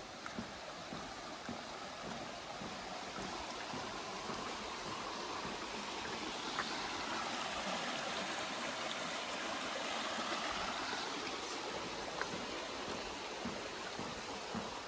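A shallow rocky stream rushing and splashing over stones, swelling louder in the middle as the water passes close beneath, then easing off a little near the end.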